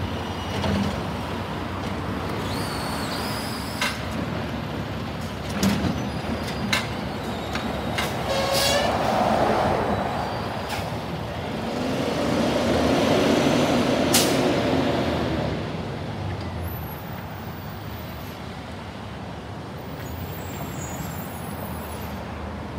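Freightliner M2 106 garbage truck with a Heil Rapid Rail automated side-loader arm at work: engine running, with a few sharp knocks in the first third. Around the middle the engine swells louder, with a short hiss of the air brakes, as the truck pulls away. It then fades off.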